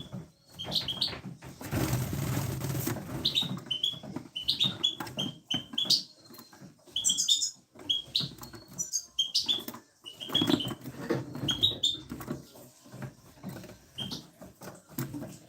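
Birds chirping in many short, repeated calls, with a burst of rustling noise about two seconds in.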